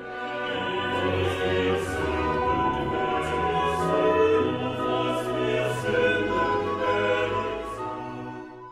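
Closing music: a choir singing slow, sustained chords with instrumental backing, fading out near the end.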